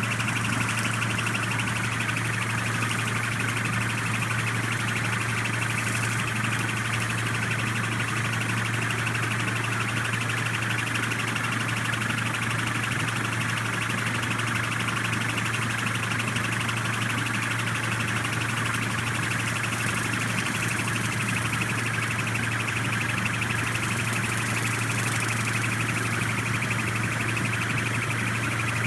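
A machine running steadily, with a constant low hum under a high, siren-like whine.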